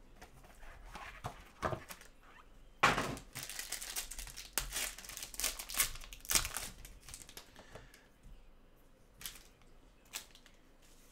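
Gloved hands crinkling and tearing open the foil wrapper of a Topps Tier One trading card pack, with irregular crackles and the sharpest one about three seconds in.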